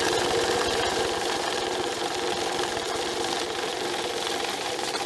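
Cassida 6600 UV/MG bill counter running steadily, its motor whirring as a stack of one-dollar bills riffles through it in a fast, even flutter of about twenty notes a second.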